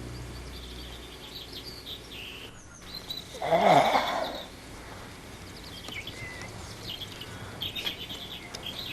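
Small birds chirping outdoors, with one much louder call about three and a half seconds in that lasts about a second.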